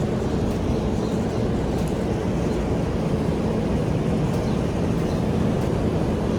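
Steady low rumbling outdoor noise, with faint ticks now and then.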